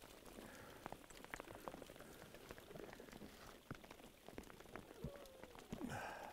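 Faint hail pattering: scattered sharp ticks of hailstones striking, irregular and light.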